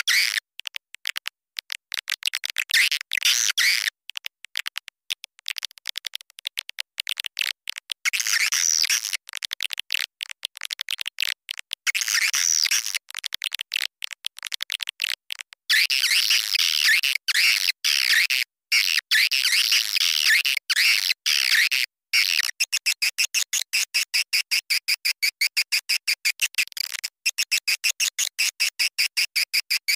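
Recorded swiftlet calls played as a lure: high, dense twittering chirps in bursts with short gaps. After about twenty-two seconds they settle into a fast, even series of short chirps.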